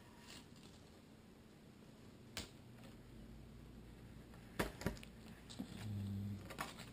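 Faint handling sounds of blue painter's tape being peeled off a carbon-fiber model-airplane wing: a few sharp clicks and small crackles, loudest a little before five seconds in, with a brief low hum about six seconds in.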